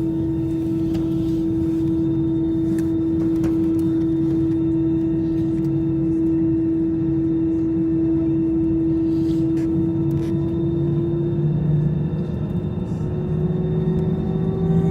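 Airbus A320 jet engines running with a steady hum, heard from inside the cabin. From about eleven seconds in, the pitch begins to rise as the engines spool up.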